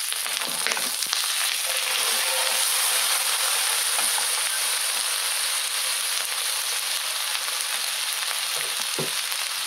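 Diced potatoes shallow-frying in hot oil in an uncovered nonstick frying pan: a steady, even sizzle, with a few brief knocks as the pieces are moved in the pan.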